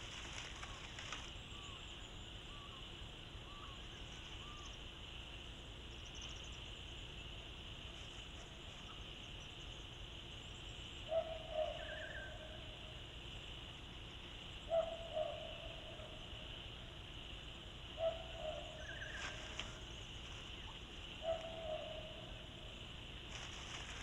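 Four short two-part animal calls, evenly spaced a few seconds apart, over a faint steady night-time background with a high insect-like hiss.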